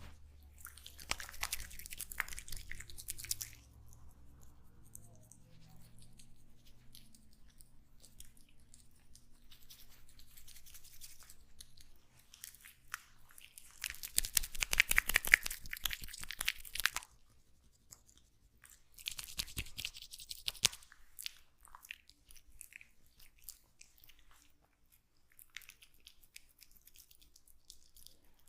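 Close crackling, rubbing sounds in three bursts: a short one about a second in, the loudest one around the middle, and a shorter one a few seconds after that, with faint scattered crackles between them.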